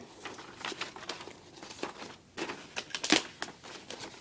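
Paper rustling as homework sheets are slid into the pocket of an accordion file folder, a string of irregular rustles and scrapes with the loudest about three seconds in.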